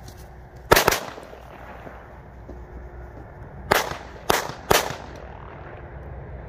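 Zhiru Spanish Cracker firecrackers exploding on the ground: a sharp bang about a second in, then three more sharp bangs in quick succession around four to five seconds in.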